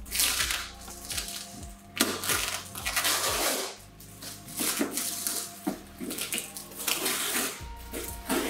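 Plastic film and packing tape on a cardboard parcel being cut with scissors and pulled away, crinkling and crackling in irregular bursts, over background music.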